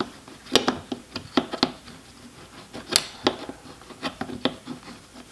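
Scattered, irregular sharp metal clicks and taps of a 10 mm socket wrench being worked onto the fog-light bracket bolt inside a car's front bumper.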